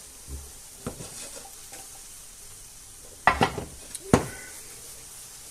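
Omelette frying in a pan with a faint steady sizzle, broken by a few small clicks and two sharper knocks about three and four seconds in.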